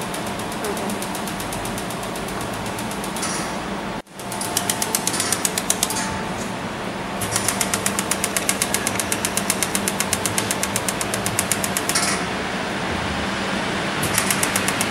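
Fiber laser welder firing in a rapid, regular series of pulses, about five a second, over a steady hum. The sound drops out briefly about four seconds in, then the pulsing resumes.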